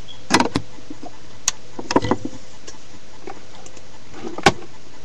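A few short, sharp clicks and knocks from small objects being handled on a desk, over a steady background hiss. There is a cluster shortly after the start, another around two seconds in, and the loudest single knock near the end.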